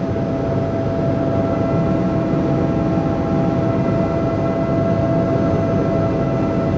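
Helicopter turbine and rotor noise heard from inside the cabin: a steady drone with a constant whine running through it.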